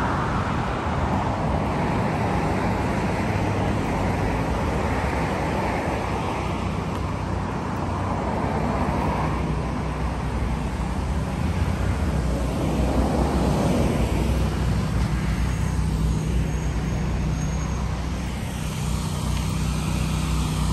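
Road traffic on a busy multi-lane street, cars passing one after another in swells of tyre and engine noise. A steady low engine hum joins in during the second half.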